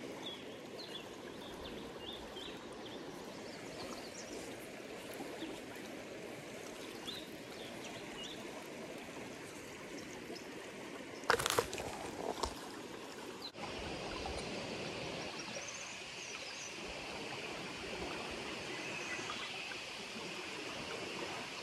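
Steady rush of river water running over rocks, with one brief louder noise a little past halfway.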